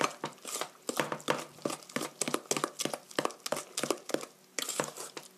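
Wooden spatula stirring a wet batter of grated apple and beaten egg in a stainless steel mixing bowl: irregular scrapes, clicks and wet slaps against the metal, several a second, with a short pause about four seconds in.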